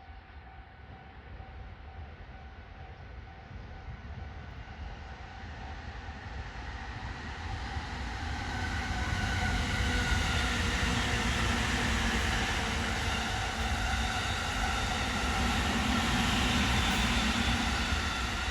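Electric train approaching along the track, growing louder over about ten seconds, then passing close at a steady loud level, with a few steady tones over the rumble of the running train.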